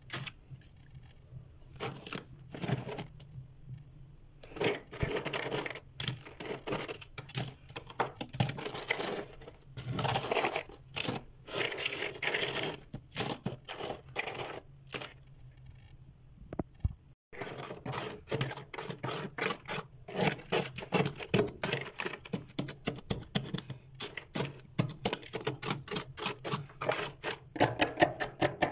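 Freezer frost crunching, a run of crisp, irregular crackles and crunches. It breaks off briefly about two-thirds of the way through, then comes back faster and more evenly.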